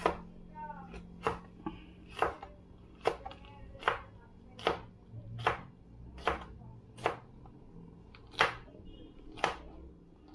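Kitchen knife slicing a green sweet pepper on a plastic cutting board: a steady series of sharp knocks as the blade meets the board, a little more than one cut a second.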